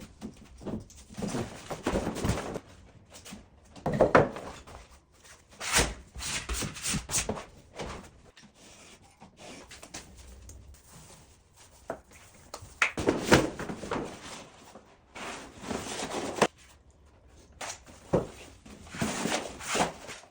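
Wallpaper being hung and smoothed onto a wall: irregular rubbing and brushing strokes with a few sharp knocks.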